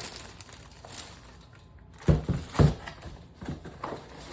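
Dull thumps and knocks of objects being handled and set down while unpacking: two heavier thumps close together about two seconds in, then a few lighter knocks, over faint rustling of packaging.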